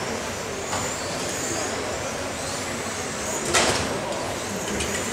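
Electric 1:10 radio-controlled touring cars racing on a carpet track, their motors whining high and rising and falling as they speed up and brake. About three and a half seconds in there is a sharp clack, typical of a car striking a kerb or barrier.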